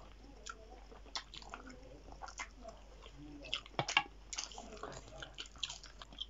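Two people chewing and biting food, including chicken feet: a run of irregular small wet clicks and crunches, with one sharper crunch about four seconds in.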